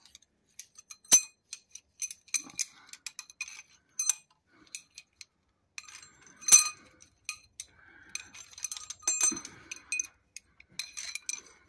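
Steel pushrods clinking against each other and against the cylinder head of a Case 207D diesel as they are handled and dropped in over the lifters. It is a scatter of light metallic clinks and ticks, with two louder clinks about a second in and about six and a half seconds in.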